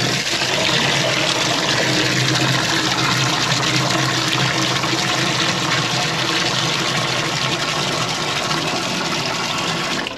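Water running hard and steadily from a pipe. It stops abruptly at the very end.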